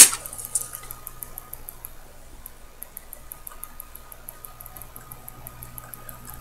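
Faint, rapid, regular ticking of a Poljot alarm watch movement, about five ticks a second, over a low steady electrical hum. A loud sharp click comes right at the start and a couple of lighter metal tool clicks follow within the first second.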